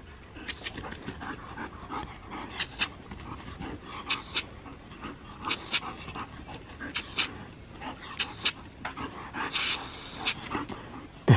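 German Shepherd panting in quick, irregular breaths while playing. A sudden loud, low sound comes right at the very end.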